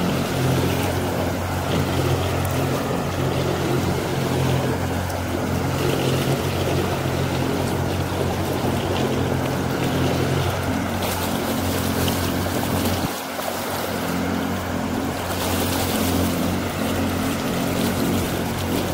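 Motorboat engine running steadily under way, a low drone over the rush of water and wind, dipping briefly about two-thirds of the way through.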